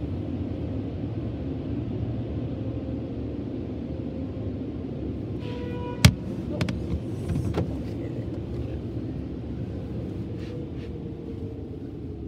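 Steady low rumble heard inside a car's cabin at a car wash entrance: the idling car and the wash machinery ahead. About six seconds in comes a brief beep and a sharp click, then a few lighter clicks.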